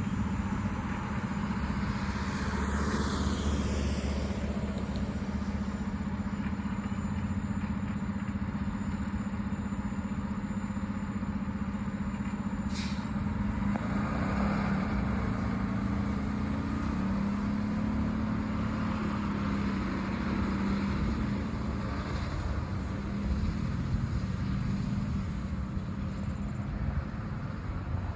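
A large vehicle's engine running steadily amid street traffic noise, with one brief click about halfway through.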